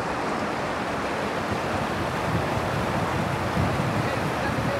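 Fast-flowing river water rushing steadily, with wind buffeting the microphone at times.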